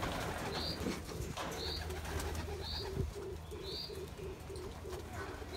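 Kelebek domestic pigeons cooing in an aviary, a low rolling coo pulsing several times a second from about a second and a half in. A short high chirp repeats about once a second throughout, and there is a single knock about three seconds in.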